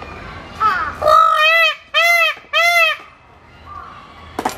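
Indian peafowl (peacock) giving its loud call: a short lead-in note, then three loud calls in quick succession, each arching up and down in pitch. A short sharp click follows near the end.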